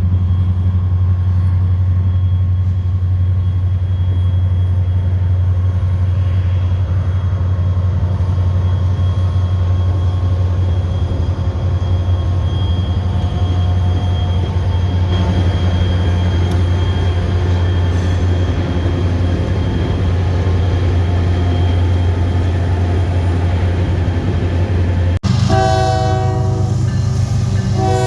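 Steady low rumble of a train, then after a sudden break near the end a train horn sounds two blasts.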